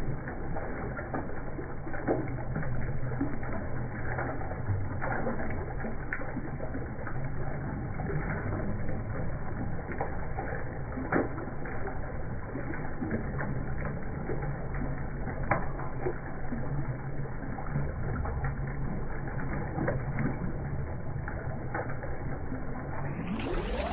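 Water falling from a rock ledge and splashing into a pool: a steady muffled splashing with frequent small irregular drips and plops.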